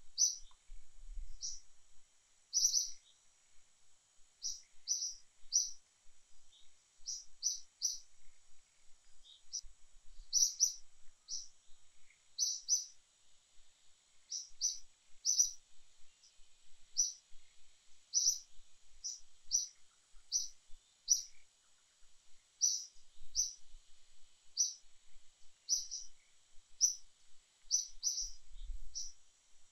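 Small bird chirping over and over: short, high chirps, often in quick twos and threes, over a faint steady high hum.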